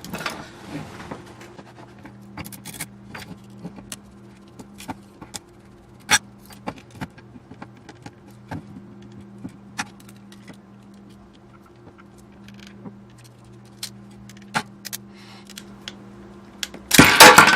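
Scattered sharp clicks and clinks of the metal parts of an old radio control box being handled, over a low steady hum, with a louder burst of clatter near the end.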